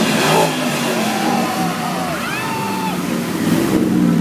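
Engine of a classic car cruising past at low speed, a steady low drone with a brief louder surge just at the start.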